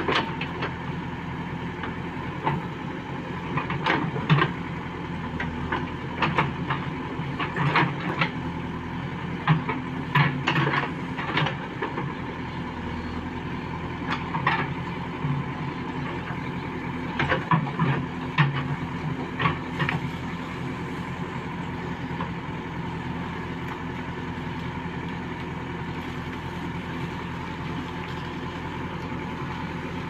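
JCB 3DX backhoe loader's diesel engine running steadily while the backhoe digs, with many sharp knocks through the first two-thirds. The last third is the engine alone.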